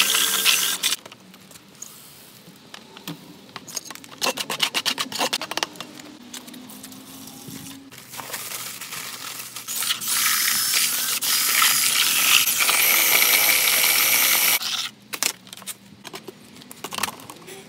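A cordless drill with a paddle mixer runs in a bucket of wet concrete for about a second and stops, followed by a quick run of clattering knocks. From about eight seconds in, dry B30 concrete mix pours from a paper sack into the plastic bucket as a long rushing hiss, which stops suddenly near the end.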